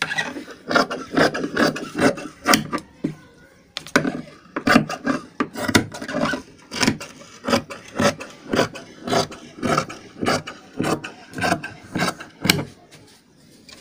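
Large tailoring scissors cutting through cloth on a table: a steady run of snips, about two a second, stopping shortly before the end.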